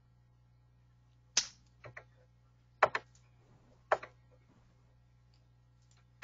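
A few short, sharp clicks and taps, about four spread over a few seconds, over a faint steady low hum on the line.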